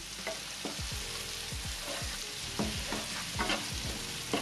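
Sliced onions, garlic and shallots sizzling in hot oil in a nonstick wok, with a plastic spatula scraping and tapping against the pan in a run of short strokes as they are stirred.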